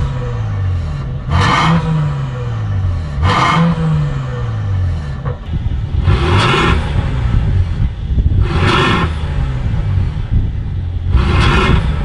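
Mercedes-AMG GLE 63 Coupe's twin-turbo V8 through a decatted Armytrix valve-controlled exhaust, free-revved while parked: five sharp blips about every two seconds, each dropping back down in pitch.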